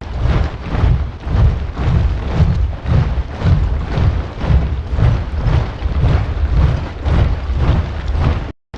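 A large body of soldiers marching in step, boots striking the ground together about twice a second in a steady cadence. The sound cuts out for a moment near the end.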